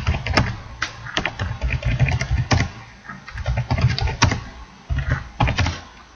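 Typing on a computer keyboard: quick runs of key clicks with a couple of short pauses.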